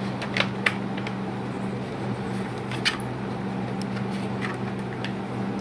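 A few small clicks and taps from handling a plastic LED video light, over a steady low hum.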